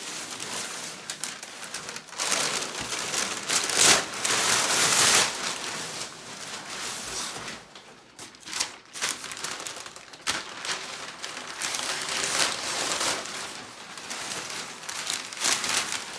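Plastic bags crinkling and rustling as a packaged item is unwrapped by hand, in uneven swells, loudest a few seconds in.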